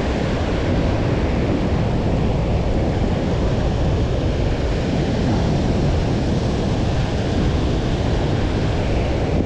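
Ocean surf breaking and washing up the beach, with wind buffeting the microphone: a steady rush with a heavy rumble.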